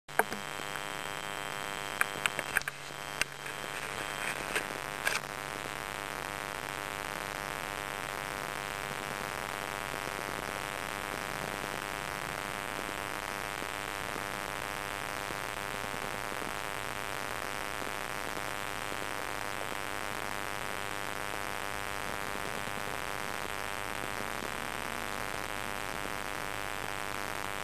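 A sleeping cat purring steadily and evenly. A few light knocks and clicks come about two to five seconds in.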